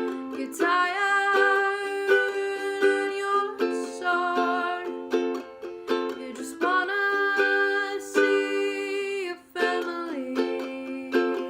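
A woman singing a slow song, holding long notes, to her own strummed acoustic string accompaniment.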